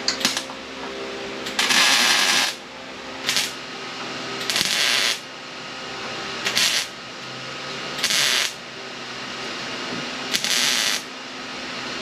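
Welder laying a few tack welds on a steel radiator core support: about seven short crackling bursts, each under a second, a second or two apart.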